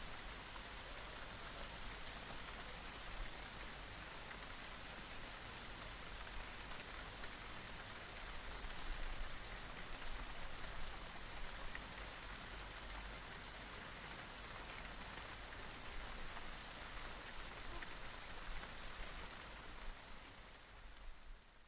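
Light rain falling in a steady patter of drops, fading out near the end.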